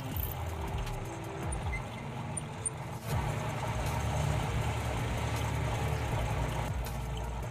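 A motor running with a low, steady hum that grows louder about three seconds in.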